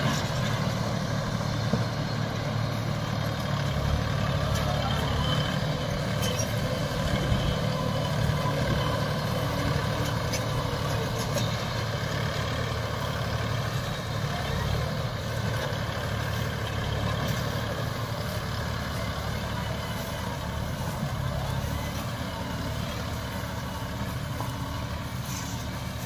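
Sanman 6000 tractor engine running steadily under a constant note, easing slightly toward the end.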